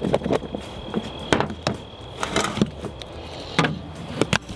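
A cucumber salad being shaken in a lidded container: irregular knocks and thuds of the food and dressing against the sides and lid.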